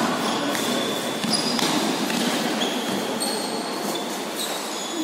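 Indoor futsal play in an echoing hall: several short high-pitched squeaks of sports shoes on the hard floor and a few knocks of the ball, over a steady wash of room noise.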